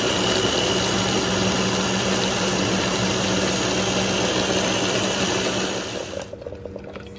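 Small electric food chopper's motor running steadily, blending cherries, ginger and water into juice, with a constant low hum under the whirring of the blade; it cuts off about six seconds in.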